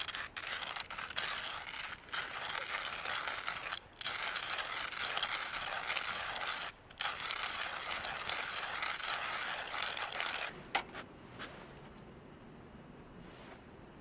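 Hand-cranked coffee grinder grinding beans: a steady grinding that breaks off briefly twice and stops about ten seconds in.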